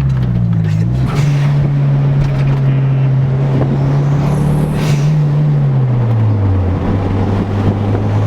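Mitsubishi Eclipse GST's turbocharged four-cylinder engine running with the car under way: a steady drone that climbs a little about five seconds in, then drops to a lower pitch about a second later.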